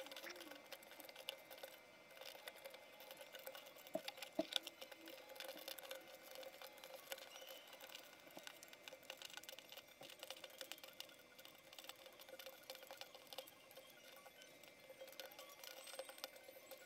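Cardboard jigsaw puzzle pieces being spread and turned over by hand on a wooden table: faint, rapid light clicks and slides, with a brief louder clatter about four seconds in. A faint steady hum underneath.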